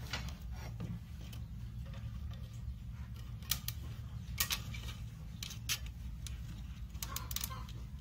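Sharp clicks and light taps from a wire fan guard being handled and fitted over a PVC pipe, mostly in the second half, over a steady low hum.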